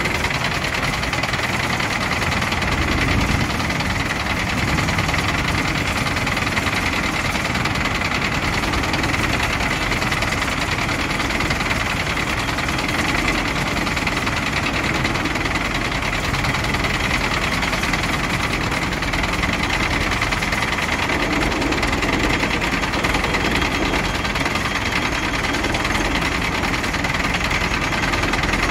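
A diesel engine running steadily, with a faint steady high whine over it, while a forklift is lifted and lowered by crane.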